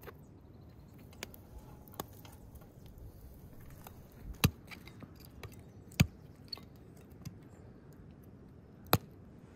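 Several sharp knocks and clinks from firewood and a samovar being handled, three of them loud and spread a second and a half to three seconds apart, over a faint steady background.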